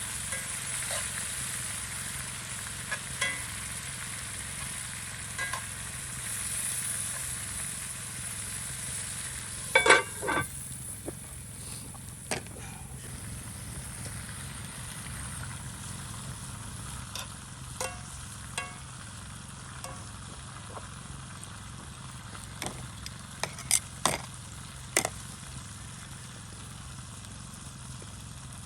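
Marinated fajita meat sizzling over a campfire, a steady hiss that grows quieter in the second half. Sharp clacks of a cooking utensil against the cookware come now and then, loudest about ten seconds in and again in a quick run near the end.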